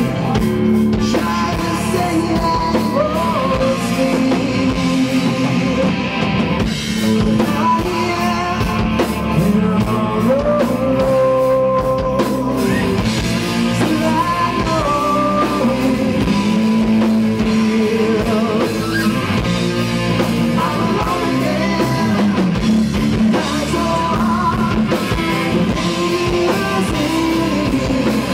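Hard rock band playing: distorted electric guitar, electric bass and a drum kit, with a male lead vocal.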